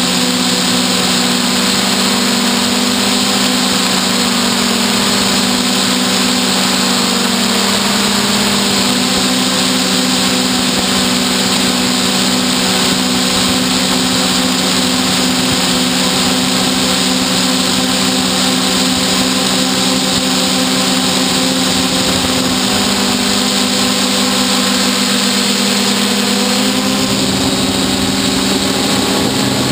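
Hexacopter's six electric motors and propellers whining steadily in flight. The pitch shifts slightly about eight seconds in and again near the end as the motors change speed.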